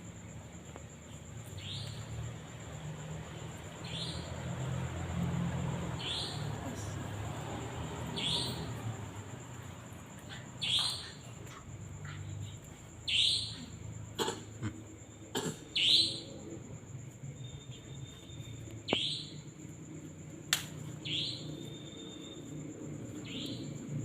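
A bird's short, high chirp that falls in pitch, repeated about every two seconds, over a steady high whine and a low hum, with a few sharp clicks in the middle.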